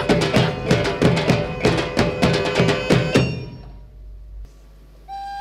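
Traditional Minangkabau percussion ensemble of gandang drums with pitched gong-chime strikes, playing a fast, even, driving rhythm that stops about three seconds in and rings away. Near the end a wind instrument enters with a held note that slides up in pitch.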